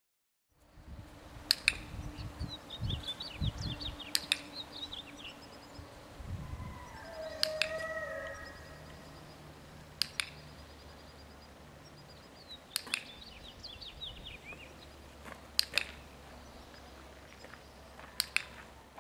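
A handheld dog-training clicker is clicked about seven times, once every two to three seconds, each click a quick double snap from the press and release. Birds chirp faintly in the background.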